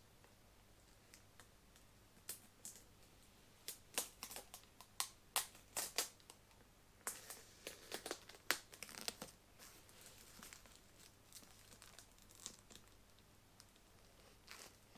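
Plastic packaging crinkling and rustling as parts are handled and unwrapped: a run of sharp crackles for several seconds, then only a few faint ones.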